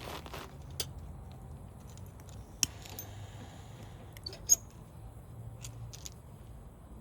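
Three short sharp clicks over a low steady hum, the loudest about four and a half seconds in.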